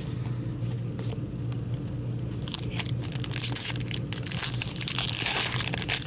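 Cards handled with light clicks, then a foil hockey card pack crinkling and tearing open, the crackle growing denser and louder about halfway through, over a steady low hum.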